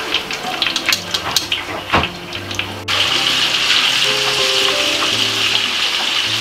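Tuna pieces frying in hot oil in a wok: irregular crackling and spitting for about three seconds, then a sudden change to a loud, steady sizzle. Background music plays throughout.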